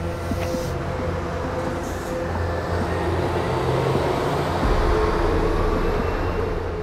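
A bus driving past close by: engine rumble and road noise that swell to a peak about five seconds in, then ease off.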